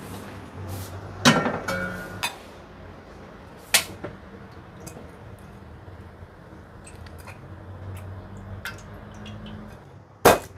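Stainless steel pot lid and metal tongs clanking and clinking against the pot as boiled corn cobs are lifted out, with a few sharp knocks: a ringing clank about a second in, another near four seconds, and a loud knock near the end. A low steady hum runs underneath.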